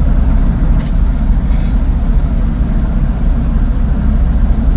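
Strong wind buffeting the microphone: a loud, steady, fluttering rumble with no break.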